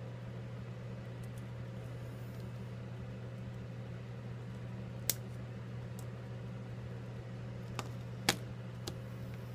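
Steady low hum of room noise under a few sharp small clicks. One click comes about five seconds in and a cluster near the end, the loudest in that cluster. They are small metal iPhone 5s brackets and parts being handled, tapped and set down on the bench during reassembly.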